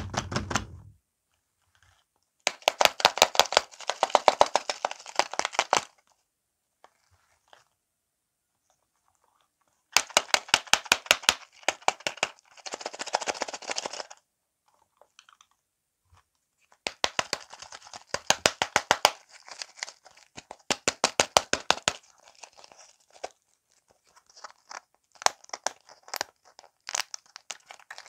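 Plastic wrappers on ball-shaped Toybox toy lollipops crinkling and scratching as they are handled, in several bursts of rapid crackle a few seconds long, with a soft thump in the first second. Near the end a wrapper is being torn open.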